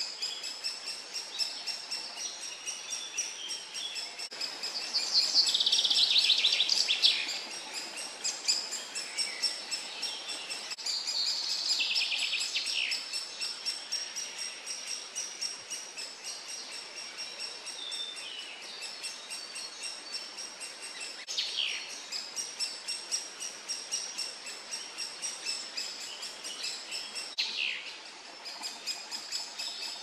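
Woodpecker nestlings begging from inside the nest hole: a steady, fast chatter of high calls that swells loudly twice, about five seconds in and again near twelve seconds, as the young are fed. A few short falling calls come later.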